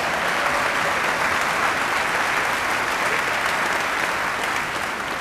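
Audience applauding, a steady spell of clapping that dies away near the end.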